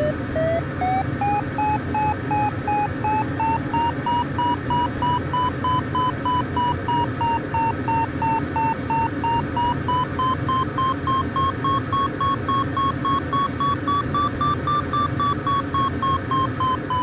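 Sailplane's audio variometer beeping rapidly, about three beeps a second, its pitch climbing over the first few seconds, sagging a little midway, then rising again to its highest before easing off near the end: it is signalling strong lift, about 8 knots of climb.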